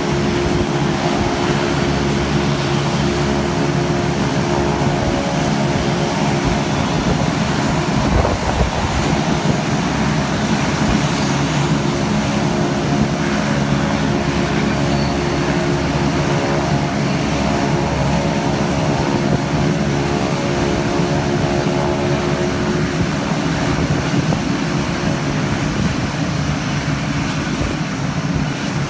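Turboprop engines of KT-1B Wong Bee trainer aircraft running on the ground, a steady propeller drone with several held tones.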